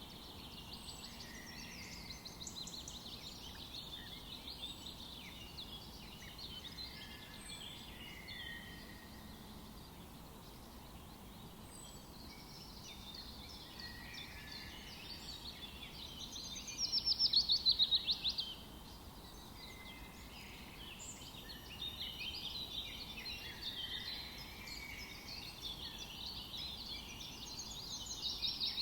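Several songbirds calling and chirping at once, overlapping short calls over a faint, steady outdoor hiss. About two-thirds of the way through, one bird gives a loud, rapid trill lasting about two seconds, and another rapid run of notes comes near the end.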